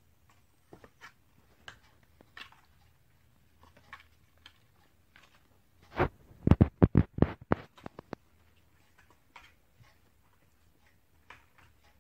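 Light taps and scratches of kittens moving about, with a burst of close knocks and rubbing about six seconds in that lasts about two seconds.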